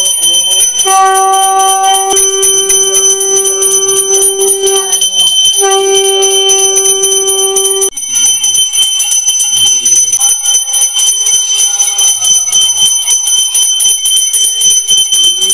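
Small brass puja hand bell rung rapidly and without pause, a high steady ringing made of fast clapper strikes. Over it, a steady lower note sounds twice, for about four seconds and then about two, ending about eight seconds in.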